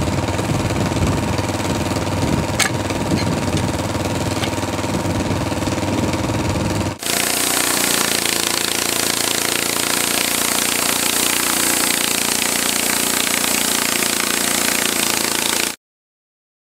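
Wood-Mizer LT15 portable band sawmill's engine running steadily. After an abrupt cut about seven seconds in, the engine runs on under the hiss of the band saw blade cutting through a red oak log. It cuts off suddenly near the end.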